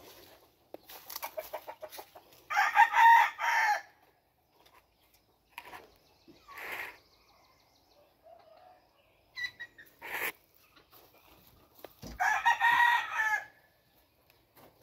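Game rooster crowing twice, about ten seconds apart, each crow about a second and a half long, with a few faint knocks and rustles between.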